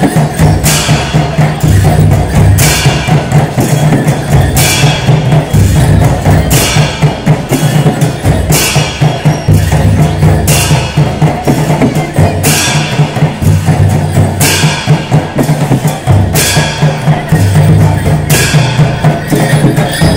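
A band of Newar dhime drums beating a fast, steady dance rhythm, with a cymbal crash accenting it about every two seconds.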